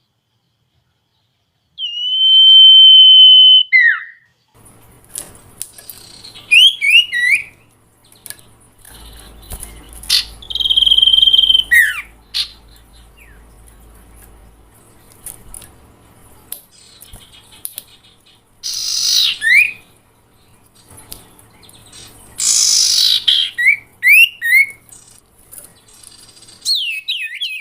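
Bird-lure recording of calls played for the sirtu (a small owl): a clear whistled note held for about two seconds, then bursts of quick falling chirps and two harsh, hissing screeches, over a faint low hum.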